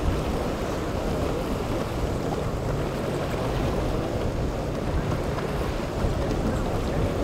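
Single Yamaha 150 outboard running on a center-console boat as it pitches through rough inlet waves, mixed with the rush of breaking water and wind buffeting the microphone. The sound stays steady, with no sharp impacts.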